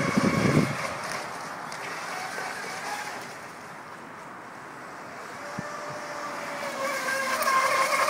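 Whine of a small home-built RC mini catamaran's electric motor, running on a 2S battery at high speed; it fades as the boat runs away and grows louder near the end as it passes close by. A short gust of wind rumbles on the microphone in the first second.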